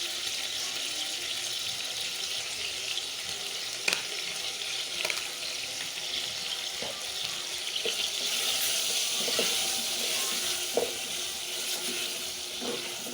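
Chicken feet frying in hot oil with ginger-garlic paste: a steady sizzle, stirred in the pan, with a few short knocks against it.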